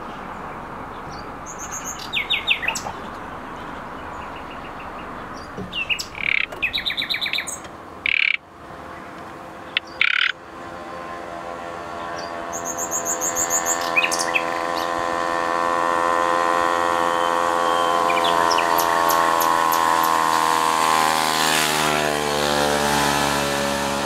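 Common nightingale singing short phrases of rapid repeated notes and fast high trills. From about halfway an engine drone builds up and grows louder than the song, its pitch rising and then falling near the end as it passes.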